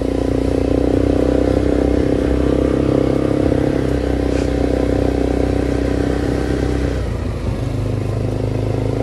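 A small ATV's engine running steadily under way at low speed, its tone changing about seven seconds in.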